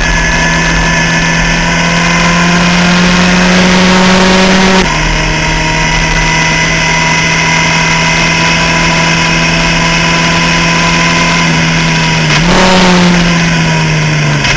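Skip Barber formula car's engine at racing speed, heard onboard over wind and road noise. The engine note climbs slowly, drops at an upshift about five seconds in, then holds fairly steady before shifting again near the end.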